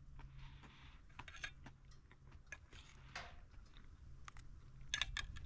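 A person chewing a mouthful of biscuit close to the microphone: quiet, irregular chewing with small clicks and crunches.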